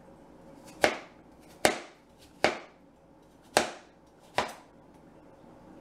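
Kitchen knife slicing peeled apples and striking the cutting board: five separate chops, a bit under a second apart.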